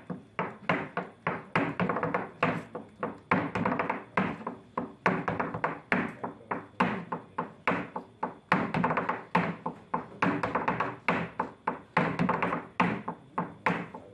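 Flamenco zapateado: heeled dance shoes striking a wooden floor board in a fast, uneven rhythm of sharp taps and stamps, several a second, with no accompaniment.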